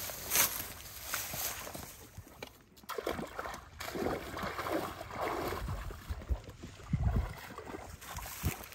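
Footsteps wading through a shallow, muddy water channel: irregular sloshing and splashing, with a sharper splash about half a second in.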